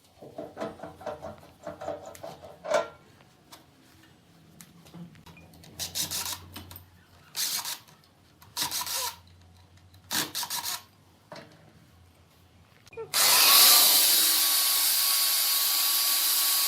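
A few short, separate rubbing or scraping strokes on wood. About 13 seconds in, a loud, steady spray hiss starts; it is the loudest sound here and has a faint whistling tone in it.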